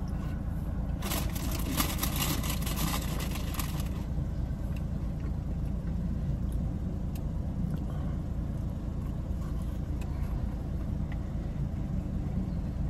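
Steady low hum in a parked car's cabin, with a crackling rustle of paper food packaging from about one to four seconds in.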